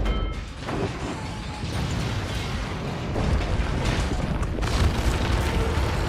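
Film sound effects of a high-rise building collapsing: a continuous heavy rumble of crashing debris, with repeated booming impacts.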